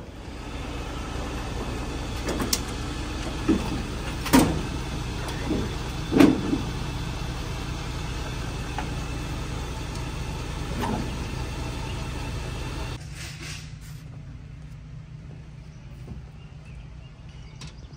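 A vehicle engine running steadily, with a few sharp knocks at irregular intervals. About thirteen seconds in the sound thins out to a quieter low hum.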